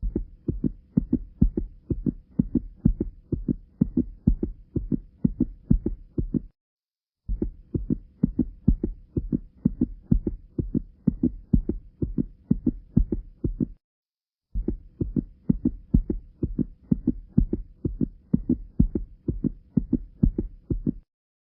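Heart sounds recorded through a stethoscope from a heart with tricuspid stenosis: steady, evenly spaced low heartbeats with a murmur between them. The same stretch of about six and a half seconds plays three times, with a brief silent break between repeats.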